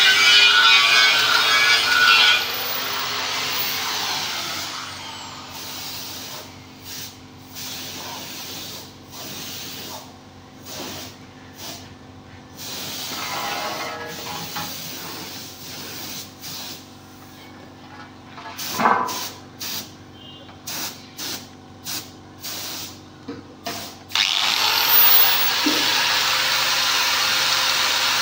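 Compressed-air paint spray gun hissing as it sprays, cutting off about two seconds in. After a quieter stretch broken by short bursts, it sprays steadily again for the last four seconds.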